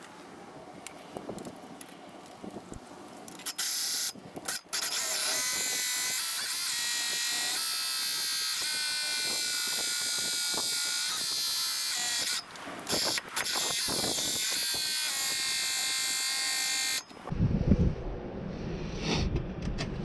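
Porter-Cable cordless drill running in reverse, spinning a reel mower's blade reel against its bedknife coated with lapping compound: a steady high whine with a scraping hiss as the blades are back-lapped sharp. It starts about three and a half seconds in, stops briefly twice, and cuts off near the end, followed by a few knocks of handling.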